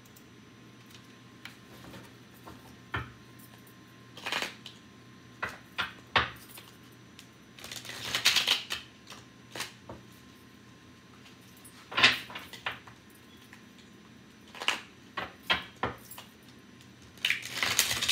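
Tarot cards being shuffled and handled by hand, with metal bangles and rings on the wrist clinking against each other and the cards. Scattered sharp clicks and taps, with a few longer bursts of shuffling, the longest about eight seconds in and again near the end.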